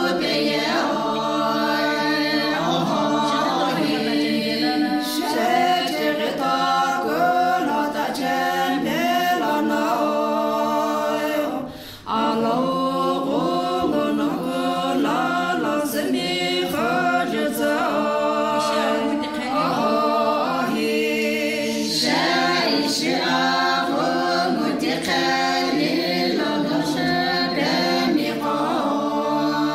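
A group of women singing a song together a cappella, voices only with no instruments, with a brief break in the singing about twelve seconds in.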